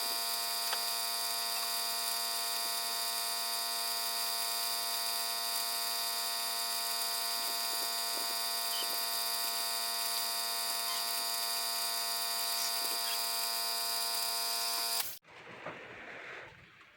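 A small electric power tool's motor running at a steady pitch with a high whine, then switched off abruptly about fifteen seconds in.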